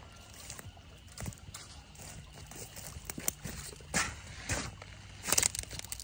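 Footsteps and rustling through dry, matted grass and mud on a creek bank, coming as irregular crunches and swishes, with the loudest cluster near the end.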